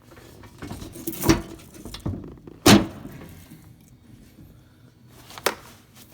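Mallet blows on a 1980 Toro 826 snowblower's auger assembly, tapping it into place as the auger bearings are refitted: three sharp knocks, the loudest about two and a half seconds in, with a lighter knock between the first two.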